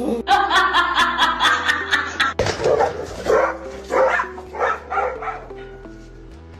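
A dog barking repeatedly: a fast run of yaps, about five a second, for the first two seconds, then slower, bending barks, over background music.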